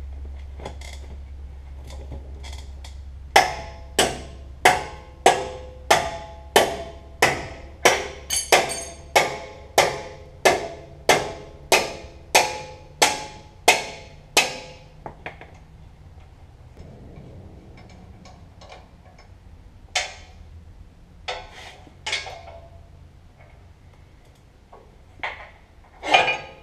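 Hammer blows on steel at a truck's rear axle and air-suspension hardware: a steady run of about eighteen strikes, roughly one and a half a second, each ringing briefly, then a few scattered blows near the end.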